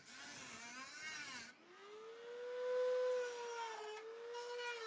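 Handheld Dremel-type rotary tool with a small cut-off disc whining steadily as it cuts rusted steel out of a car door's edge, its pitch dipping briefly a couple of times as the disc bites into the metal.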